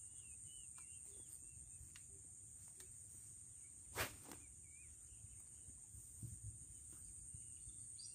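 One sharp swish of a fishing rod whipped through a cast, about halfway through. Under it runs a steady high-pitched insect drone with a few faint bird chirps.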